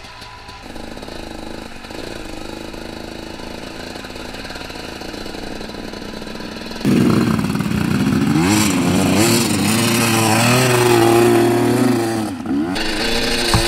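Husqvarna dirt bike engine running under way, steady and moderate at first; about halfway through it gets suddenly louder, revving with the pitch rising and falling as the throttle is worked, with a brief drop near the end.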